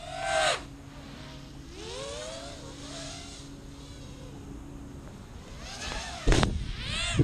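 FPV racing quadcopter's brushless motors and propellers whining, the pitch sweeping up and down again and again as the throttle is punched and eased. A short loud surge near the start and a loud low rush about six seconds in, followed by more quick rising and falling whines.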